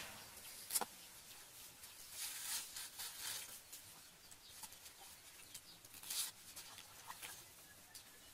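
Napa cabbage leaves being put into a plastic bowl of water with enoki mushrooms: soft splashing and leaf rustling in short scattered bursts, with a sharp tap about a second in.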